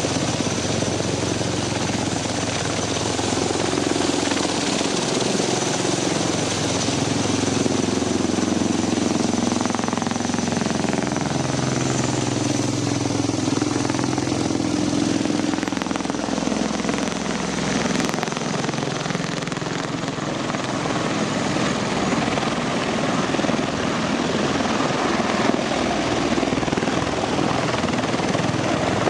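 Bell Boeing V-22 Osprey tiltrotor flying low in helicopter mode, its two proprotors and twin turboshaft engines making a loud, steady pulsing beat. The low drone shifts slowly in pitch as the aircraft moves across.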